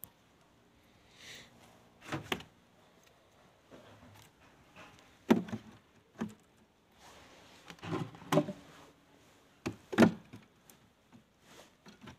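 Wooden beehive boxes and frames being handled: irregular knocks and thuds of wood, the loudest about five seconds in and about ten seconds in.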